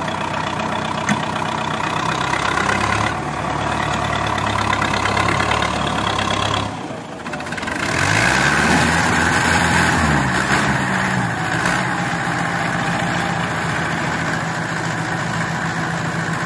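Diesel tractor engine running steadily. About seven seconds in, after a short drop, the Fiat tractor's diesel catches on a cold start and revs up and down several times, then settles into a steady idle.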